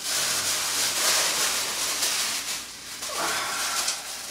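Thin white plastic bags rustling and crinkling as they are pulled open by hand, with a short lull about three seconds in.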